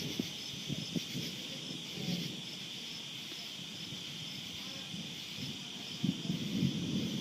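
Steady night chorus of crickets and katydids trilling, with faint pulsing. Irregular low muffled rumbles and thumps come and go beneath it, loudest near the end.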